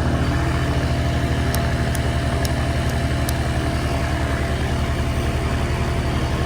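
Paramotor's two-stroke engine idling steadily and refusing to shut off: its kill switch wire has broken.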